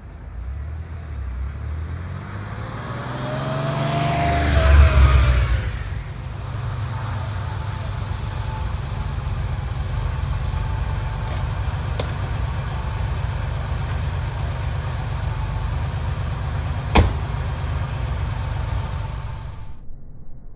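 1983 Porsche 911SC's air-cooled flat-six driving past close by, swelling to a peak with its pitch rising and then falling about five seconds in. It then runs steadily at low revs. There is a sharp click about seventeen seconds in, and the sound cuts off abruptly near the end.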